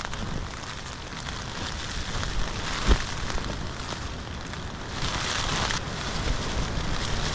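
Rain falling steadily, with wind buffeting the microphone as a low rumble. There is a short thump about three seconds in and a louder spell of hiss around five seconds.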